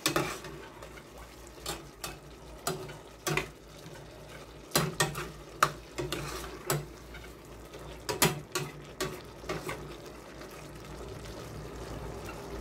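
Metal ladle stirring chicken pieces in a stainless steel pot, scraping and knocking against the pot at irregular intervals, over a steady sizzle of the chicken cooking in oil.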